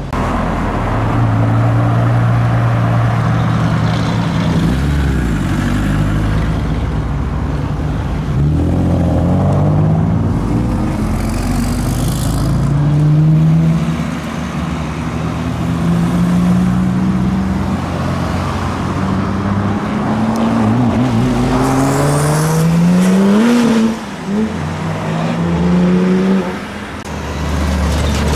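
Several modified cars driving past one after another, their engines revving as they accelerate away. Overlapping engine notes rise in pitch, and near the end one climbs steeply and cuts off sharply.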